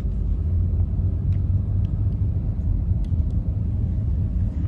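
Road noise inside a moving car on a wet road: a steady low rumble of engine and tyres, with a few faint ticks.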